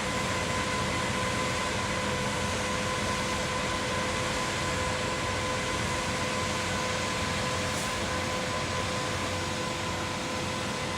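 Concrete pump running steadily: a constant mechanical noise with a steady whine.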